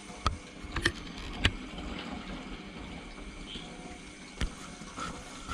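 Steady running water from the aquarium's circulation, a continuous splashing trickle, with a handful of sharp clicks in the first second and a half and one more near the end.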